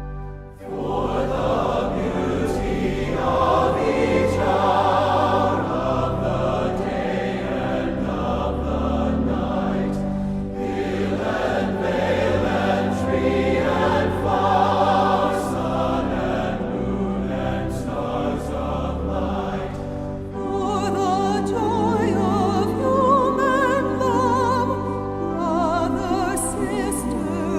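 A hymn sung by a choir over steady sustained accompaniment, the voices coming in about half a second in.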